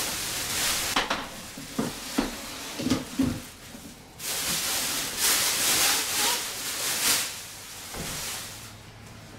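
Plastic wrapping crinkling and rustling as it is pulled off a new table saw and its folding stand, at the start and again for a few seconds in the second half. A few knocks come in between as the saw's frame is handled and set down on the floor.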